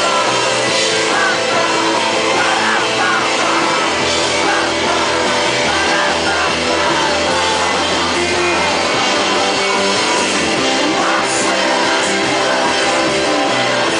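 Live rock band playing loud: guitars and a full band under a male singer whose vocal line carries roughly the first half, heard from the crowd close to the stage.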